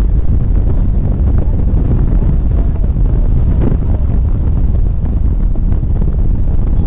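Acura NSX's mid-mounted V6 running under load on a race track, heard from inside the cabin as a loud, steady low rumble mixed with road and wind noise buffeting the microphone.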